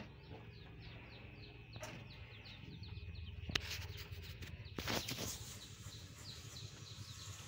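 A bird chirping in a rapid series of short, falling notes, about four or five a second, over a low steady hum, with a few sharp clicks and a brief rustling burst about five seconds in.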